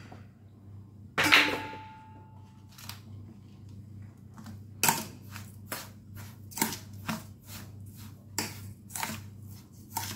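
Hands working lemon peels into granulated sugar in a bowl: a loud knock about a second in with a brief ring, then, from about five seconds in, a run of sharp taps and scrapes about two a second.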